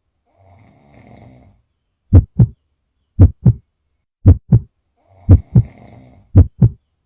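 A person snoring faintly, twice, over a loud heartbeat sound effect. The heartbeat is a low double thump, lub-dub, that starts about two seconds in and repeats about once a second.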